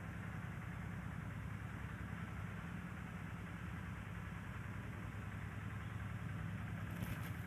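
A steady low engine hum, like a motor idling, with a few faint crackling clicks near the end.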